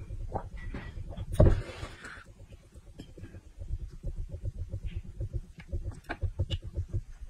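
Close-miked drinking and eating mouth sounds: swallowing water from a plastic jug, a sudden louder noise about a second and a half in, then quick, repeated wet mouth clicks and smacks.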